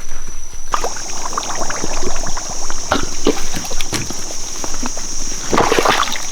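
Footsteps in rubber boots squelching and crackling along a muddy rainforest trail: an uneven run of wet steps and snaps. A steady high-pitched buzz comes in under them about a second in.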